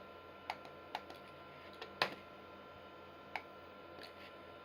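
Computer mouse buttons clicking on an Amiga 4000: a handful of sharp, irregularly spaced clicks, the loudest about two seconds in, over the faint steady hum of the running computer.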